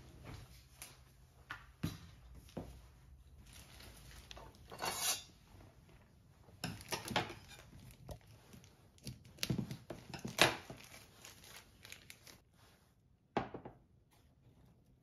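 Unpacking new purchases by hand: plastic wrapping rustling and crinkling, with cardboard boxes and packaging handled and set down on a countertop in scattered light knocks and clicks. There is a sharper knock near the end.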